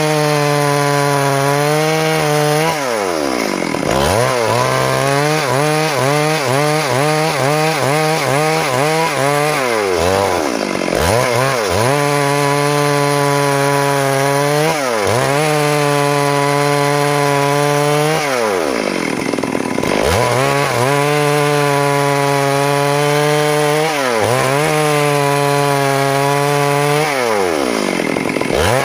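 Stihl MS 382 two-stroke chainsaw running near full throttle while ripping a log lengthwise along the grain. The engine note is loud and steady, dipping sharply in pitch and climbing back about four times as it is let off and loaded again in the cut.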